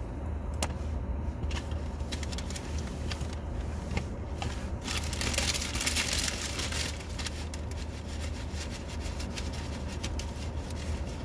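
Steady low hum of a stationary car idling, heard from inside the cabin, with scattered crackles and scraping rustles close to the microphone that are densest about five to seven seconds in.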